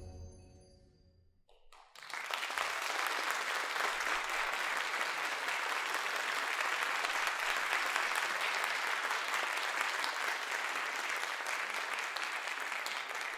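The tail of a concert band's final chord dies away in the hall. About two seconds in, the audience breaks into steady applause.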